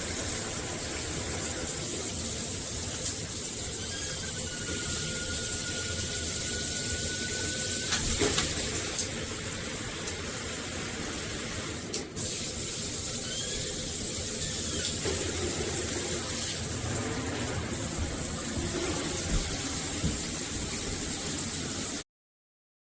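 Shower head spraying water in a steady hiss, with a faint thin whistle for a few seconds and a brief break near the middle. It cuts off suddenly near the end.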